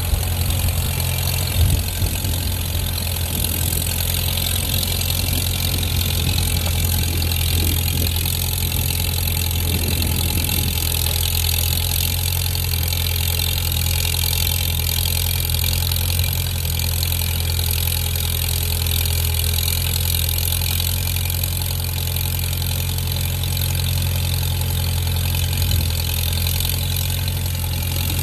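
1953 Farmall tractor's engine running steadily under load as the tractor grades a dirt driveway.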